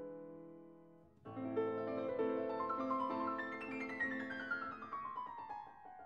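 Background piano music: a held chord fading away, then a new passage about a second in with a run of notes stepping downward.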